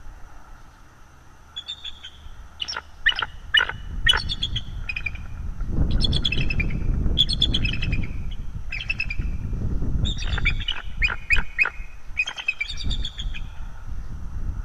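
Bald eagles calling: bouts of quick, high chattering notes, repeated several times, with a low rumble underneath from about six seconds in.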